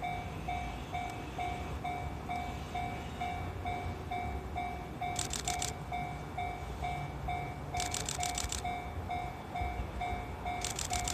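Japanese level crossing's electronic warning bell ringing steadily, about two and a half strikes a second. Three short bursts of rapid high ticking come over it, at about five, eight and eleven seconds.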